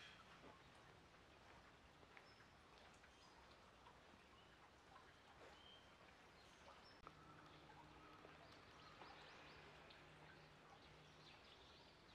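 Near silence: faint outdoor ambience with a few brief, distant bird chirps, and a faint low steady hum between about seven and eleven seconds in.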